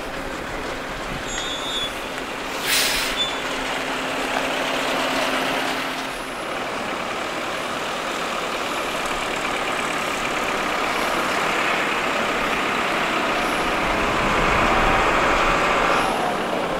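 Classic emergency vehicles' engines running as they drive past at low speed. A brief sharp hiss comes about three seconds in, and a heavier truck engine grows louder near the end.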